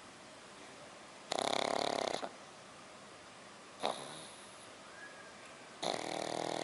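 Snoring: two long snores about four and a half seconds apart, each lasting about a second, with a short snort-like sound between them.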